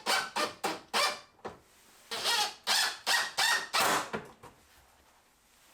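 A roll of shop towels on a small paper towel holder being spun and tugged, making short squeaky strokes about three a second. They come in two runs, the second from about two to four seconds in.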